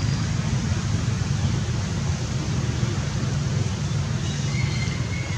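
Steady low rumbling background noise with no breaks, and a faint thin high tone briefly near the end.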